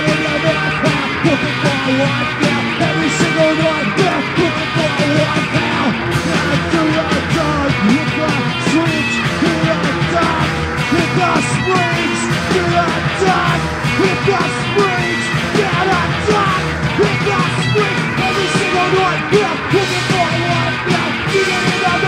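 Garage punk song playing: a loud, dense full band with shouted vocals.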